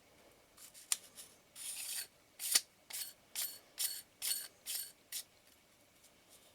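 Threaded outer front ring of an Ai-Nikkor 24mm f/2.8 lens being turned by hand onto its thread: a series of short, high scraping rubs, about two a second, after a small click about a second in.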